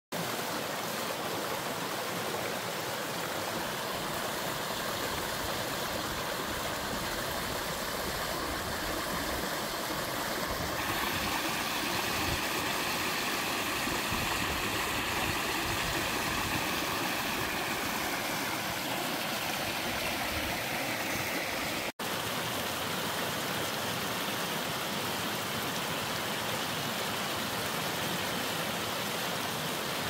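Mountain stream rushing over granite bedrock in small cascades, a steady unbroken rush of water. It drops out for an instant about two-thirds of the way through.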